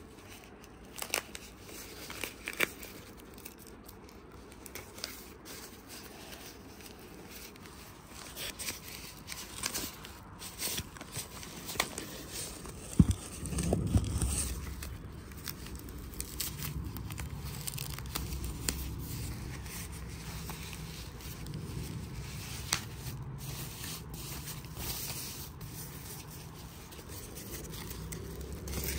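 Packaging being torn open and unwrapped by hand: tearing and crinkling with scattered clicks. A sharp knock comes about halfway through, followed by a low rumble.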